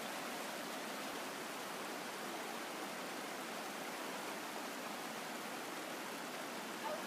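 A fast hill river rushing over rocks: a steady, even rush of water that does not change.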